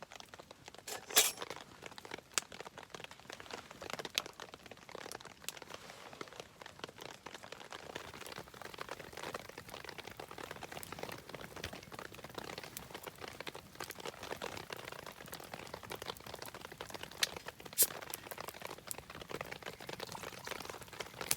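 Wood campfire crackling, with a dense run of small snaps and two louder, sharper pops, about a second in and near the end, over the steady patter of rain.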